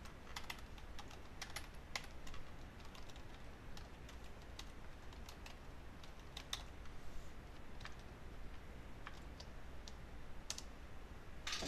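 Computer keyboard being typed on: faint, irregular keystrokes, a few scattered clicks at a time, with a quicker run of keys near the end.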